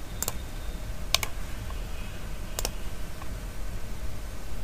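Three single computer mouse clicks, well spaced, a second or more apart, over a steady low room hum.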